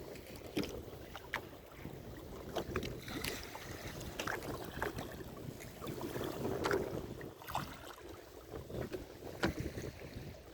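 Wind and sea noise around a small fishing boat, with irregular knocks and clatter on board.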